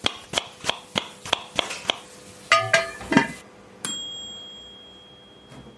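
Kitchen sound effects closing the episode: a knife chopping on a board in even taps, about three a second, then a few short clinks, and about four seconds in a single bright bell-like ding that rings out and fades slowly.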